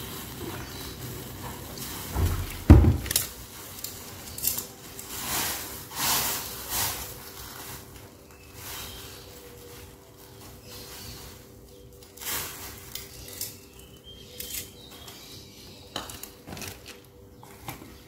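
Metal spatula clinking and scraping against a steel wok while leaves are stirred, in irregular short knocks. A heavy thump, the loudest sound, comes about three seconds in.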